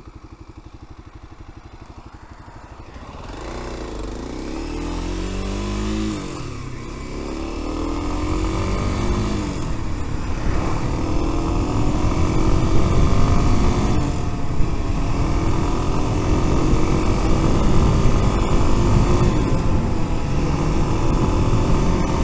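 Kawasaki KLX250S single-cylinder four-stroke engine at a low steady pulse. After about three seconds the engine pitch rises and drops back two or three times as the bike accelerates up through the gears, then it holds steady at cruising speed with wind rush on the helmet-mounted microphone.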